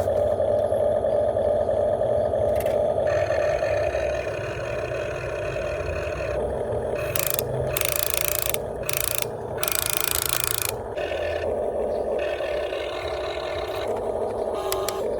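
Huina 1592 radio-controlled excavator's electric gear motors whining steadily as it works. About halfway through come three short bursts of hissing, scraping noise.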